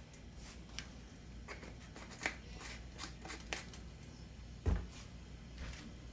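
Light rustling and scattered clicks of hands handling food and utensils at a kitchen counter, with one dull knock about three-quarters of the way through.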